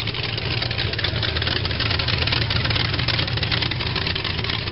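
A T-bucket hot rod's exposed V8 running through short open header pipes as it rolls slowly past, a loud, steady throb of closely spaced exhaust pulses.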